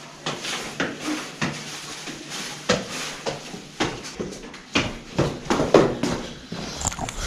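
Irregular knocks and thumps of footsteps on concrete stairs, with a bicycle clanking as it is carried up them.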